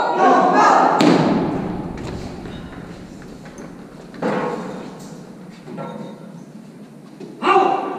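A heavy thud about a second in, echoing and dying away over a few seconds in the large rock-cut hall, from a howitzer crew's drill. Short shouted drill commands ring out about four seconds in and again near the end.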